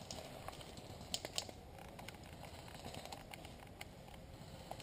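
Faint rustling of dry leaf litter and twigs with a few light clicks, a small cluster about a second in and a couple more near the end, as a player shifts through woodland undergrowth.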